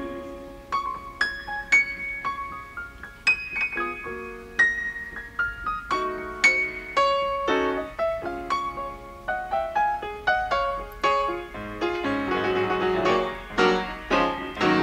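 Solo piano music: single notes and small chords struck one after another, each ringing and fading before the next.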